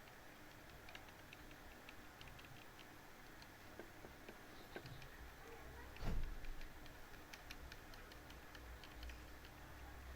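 Typing on a Dactyl Manuform 5x6 split mechanical keyboard with Gateron Black linear switches: soft, irregular keystroke clicks, with a louder thump about six seconds in.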